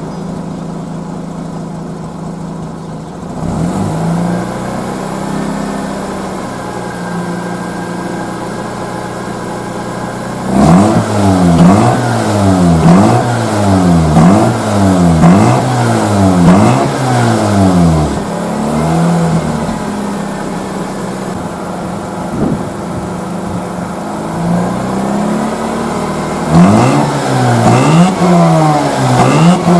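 Mazda RX-8's 1.3-litre twin-rotor Wankel rotary engine idling, then blipped in a quick run of revs about once a second before settling back to idle, and revved again near the end. The engine is being checked after standing unused all winter.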